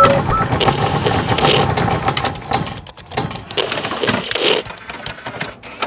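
Sound effects for an animated logo intro: rapid mechanical clicking and ratcheting, with several swelling whooshes and a short electronic beep at the very start.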